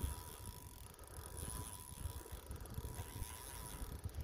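Wind buffeting the microphone: a low, uneven rumble.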